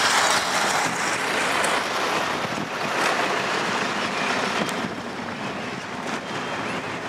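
Wind rushing over the microphone of a moving vehicle, a steady noise with road and engine sound beneath it.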